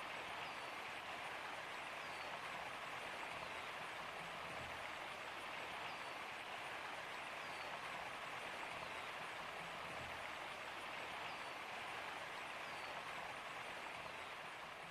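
Winter waterfall, its water rushing in a steady, unbroken hiss.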